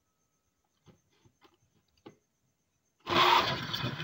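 A few faint plastic knocks as the blender jar is lidded and set on its base, then about three seconds in the countertop blender motor starts suddenly and runs, grinding soaked soybeans with water.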